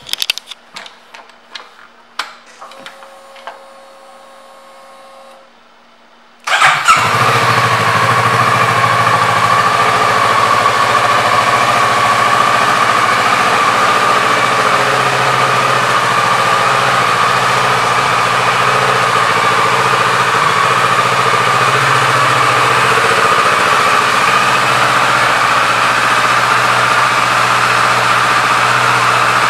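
2017 Kawasaki Ninja 650's parallel-twin engine started after a few clicks and a brief faint hum. About six seconds in it catches at once with a loud burst and then runs at a steady idle.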